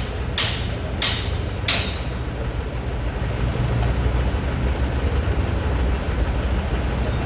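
Heavy diesel engine of construction machinery running steadily at a concrete pour. In the first two seconds there are three sharp knocks about two-thirds of a second apart.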